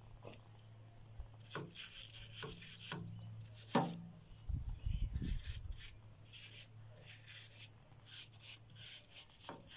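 Sandpaper rubbed by hand on a rusty wrought-iron flower stand: irregular scratchy strokes starting about a second and a half in. A brief low rumble near the middle.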